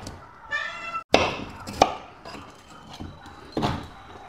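Kitchen knife chopping chunks of a white root vegetable on a chopping board: several sharp, irregularly spaced chops, the loudest a little after a second in.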